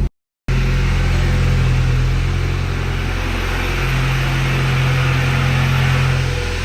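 Volkswagen MK6 Golf GTI running: a steady low engine drone with a hiss over it. The sound cuts out completely for a moment just after the start, and the drone dips briefly near the end.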